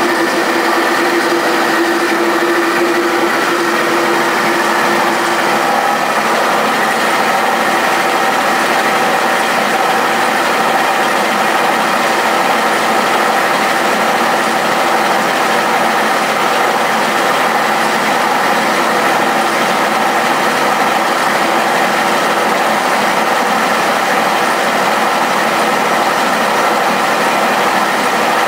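Wickman multi-spindle automatic screw machine running: a steady, dense mechanical clatter and hum with several steady whines over it. A lower whine gives way to a higher one about five seconds in.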